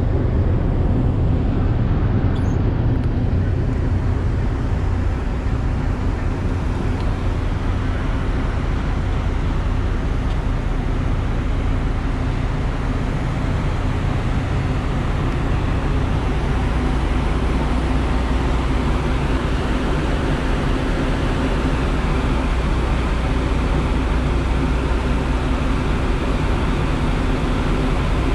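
Steady low drone of a ferry's engines and machinery heard on its open deck, under an even rushing noise.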